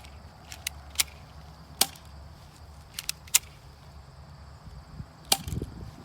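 Airsoft Beretta M92 pistol firing: a string of sharp snaps at uneven intervals of about a second, four louder and a few fainter clicks between them, with some low rustling near the end.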